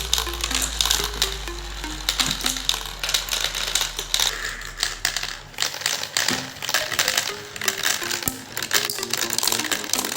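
Marbles clicking and clattering irregularly as they roll and drop through a marble run, over background music with a plucked, stepping melody.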